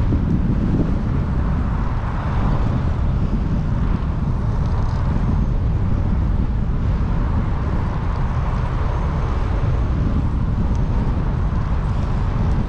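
Steady rush of wind on the microphone of a camera carried on a moving bicycle, swelling and easing gently.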